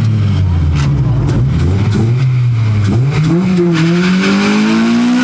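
Car engine running at a steady low speed, then revving up: its pitch climbs steadily over the last two seconds or so.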